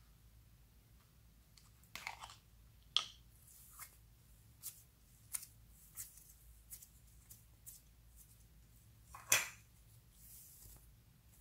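A thin plastic toy slime capsule is pried open and the slime pulled out of its clear shell, making a string of sharp plastic clicks and crackles. One louder crackle comes near the end.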